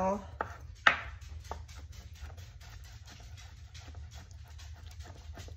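Kitchen knife chopping chicken giblets on a plastic cutting board: a few sharp chops in the first second and a half, the loudest about a second in, then only faint light taps.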